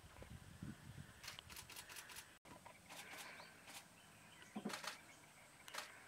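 Faint outdoor bush ambience with scattered sharp clicks and ticks and a few short chirps. The sound cuts out for an instant about two and a half seconds in.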